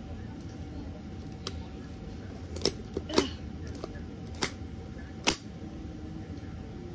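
Plastic clicks and knocks from a Minecraft Nerf hammer blaster being handled and loaded with foam darts: about five sharp clicks spread over a few seconds, over a steady low background hum.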